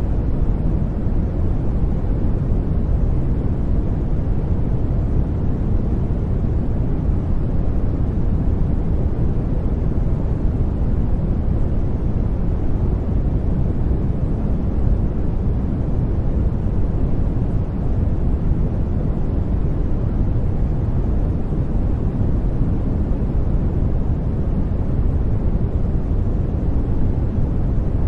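Steady generated noise track (white noise), even and unchanging throughout, a deep rushing sound with most of its weight in the low end.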